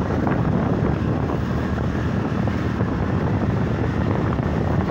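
Steady wind buffeting the microphone of a camera on a moving motorcycle, with the bike's running and road noise underneath.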